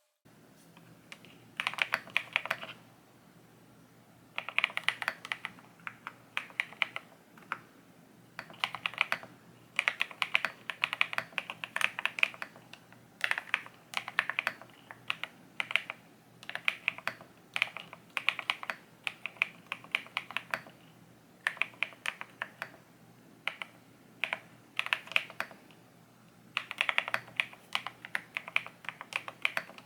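Typing on a custom Cidoo ABM066 Alice-layout 65% mechanical keyboard fitted with Matcha switches: rapid key clacks in bursts of a second or two, broken by short pauses.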